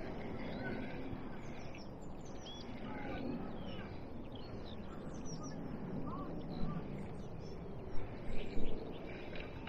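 Small songbirds chirping and singing, many short high calls overlapping, over a steady low rumble. A few soft knocks come near the end.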